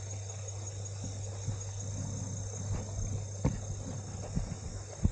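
Insects, crickets or the like, chirping steadily in a high pitch, with a few soft thumps of footsteps through grass on the bank.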